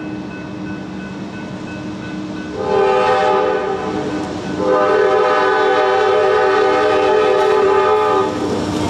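Nathan Airchime K5LA five-chime locomotive horn sounding two blasts, a shorter one about a third of the way in and then a longer one held for nearly four seconds, over a steady low hum from the train.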